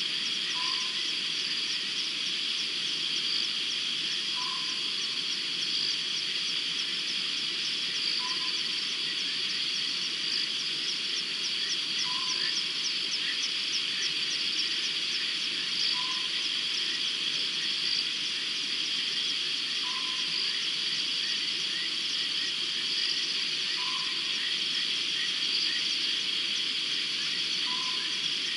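Night chorus of insects and frogs: a steady high-pitched shrilling with fast pulsing, and a short low call repeating about every four seconds.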